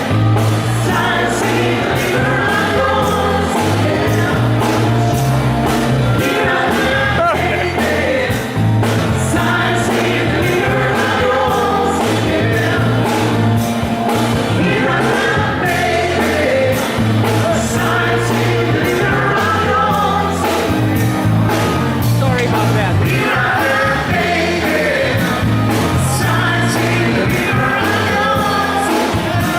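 Pop music with a singer over a steady drum beat and bass line.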